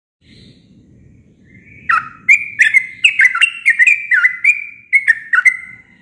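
Yellow-vented bulbul (trucuk) singing: a rapid run of about a dozen short, bubbly, sweeping notes, starting about two seconds in and lasting nearly four seconds.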